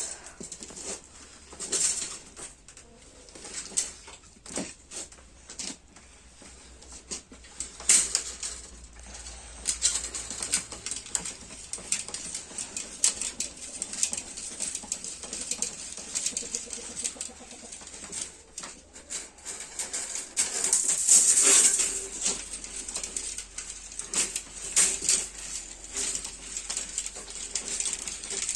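Irregular metallic clicks and rattles of steel wire being worked on a homemade manual chain-link mesh weaving machine.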